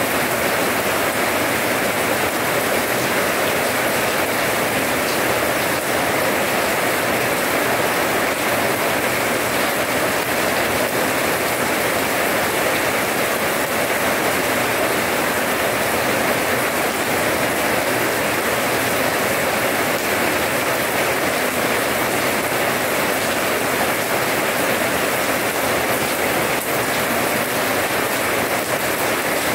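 Steady rain falling on a wet paved yard, an even hiss of drops splashing on the paving stones and puddles.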